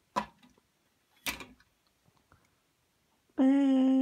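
Two short knocks, then a person starts humming one steady, held note about three seconds in.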